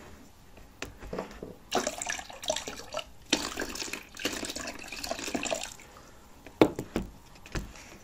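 Liquid poured from a glass over a washing-machine heating element, splashing into a bucket of lemon salt and vinegar solution in two spells. A few sharp knocks follow near the end.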